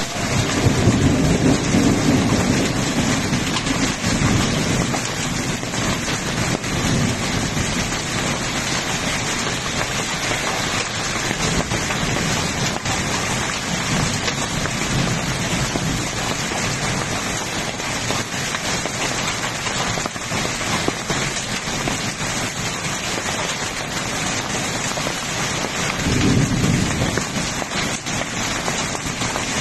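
Heavy rain with hail pelting a paved road, a dense steady hiss. A low rumble swells in over the first few seconds and again near the end.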